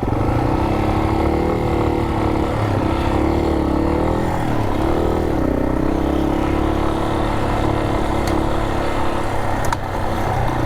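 Yamaha Serow 250's single-cylinder engine running under way. Its pitch rises and dips a few times in the first half, then holds steady. A single click comes near the end.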